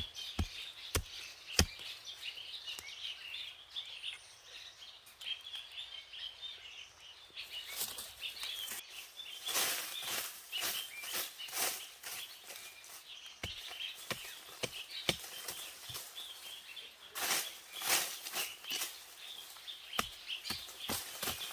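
Birds chirping steadily, with many sharp snaps and rustles of plants being handled, bunched about ten seconds in and again near the end.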